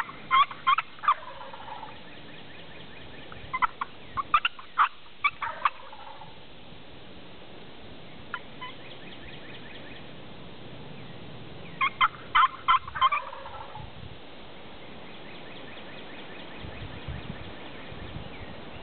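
Male wild turkey gobbling three times: at the start, about four seconds in, and about twelve seconds in. Each gobble is a quick rattling run of notes that trails off.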